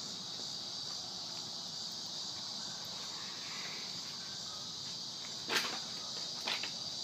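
Steady, high-pitched insect chorus with two knocks, a sharper one about five and a half seconds in and a lighter one a second later.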